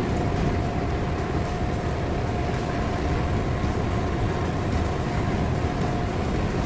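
Large ventilation exhaust fan running with a steady, even drone and a thin steady hum riding on top.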